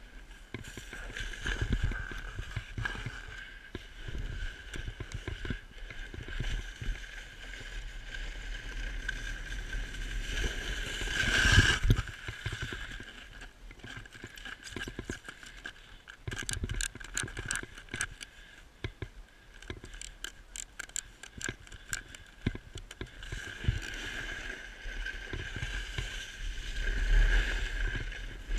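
Snowboard sliding and scraping over packed snow, an uneven rumble and hiss with a louder scrape about twelve seconds in and a stretch of rapid clattering a few seconds later.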